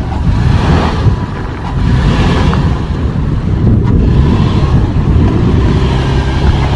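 2011 Toyota 4Runner Trail Edition's 4.0-litre V6 running as the truck drives a rough off-road trail, a loud, steady low rumble.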